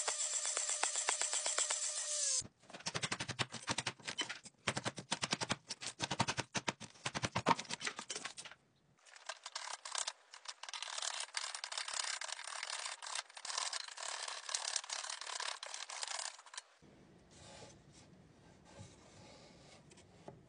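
A power saw running, then spinning down about two seconds in, followed by fast, dense runs of sharp cracks and clicks as a chisel snaps out the thin slivers of wood left between closely spaced saw kerfs. The cracks stop near the end, leaving quieter rubbing of wood on wood.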